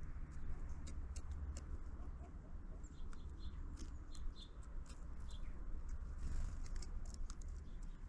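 Small birds at a feeder tapping and pecking, with many sharp irregular clicks, and a few short high chirps near the middle, over a steady low rumble.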